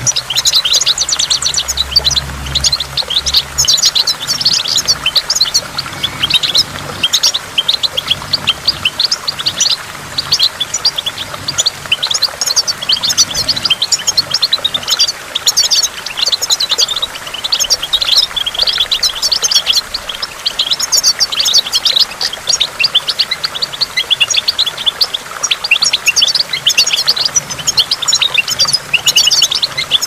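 European goldfinch singing: a fast, unbroken twittering song of high chirps and trills.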